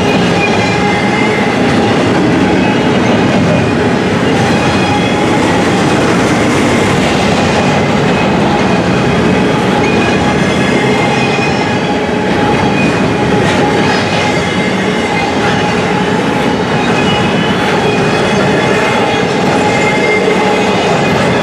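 Double-stack intermodal container cars rolling past, a steady loud rumble and clatter of steel wheels on the rails, with faint steady tones running through it.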